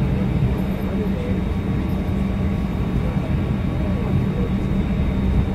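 Steady low hum inside the cabin of a parked Boeing 737-900ER airliner, with passengers' voices murmuring underneath.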